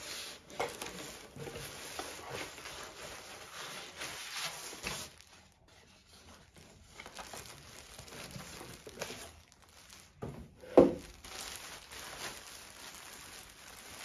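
Plastic packaging crinkling and tearing as a parcel is unwrapped by hand, with scattered small rustles and clicks. There is one short, loud thump about eleven seconds in.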